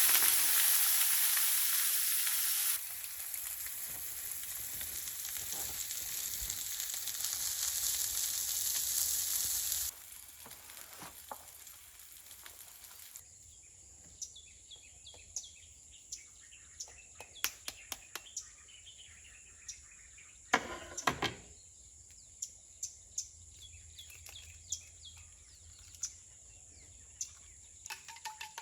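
Food sizzling in a frying pan, a loud, even hiss that cuts off about ten seconds in. After it comes a quieter stretch of scattered light clicks and taps, with one louder clatter about two-thirds of the way through.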